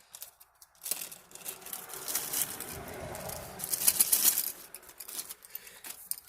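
Packing wrapping crinkling and rustling as a lock is unwrapped by hand: an irregular crackle that builds up and is loudest near the middle, then dies away.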